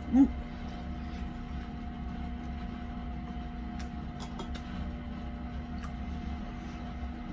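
Steady low room hum with a constant tone, broken just after the start by a short voiced 'mm', with a few faint light clicks later on.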